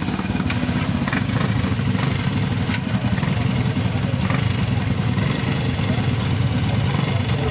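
Vintage motorcycle engines idling steadily.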